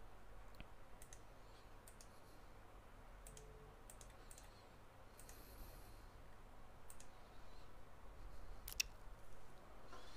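Faint, scattered clicks of a computer mouse over quiet room tone, irregularly spaced, with one sharper click near the end.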